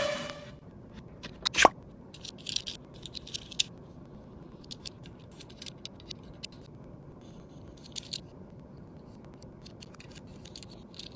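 Tomica die-cast toy cars rolling down a slope track: scattered light clicks, rattles and scrapes, with one short sharp sound about a second and a half in.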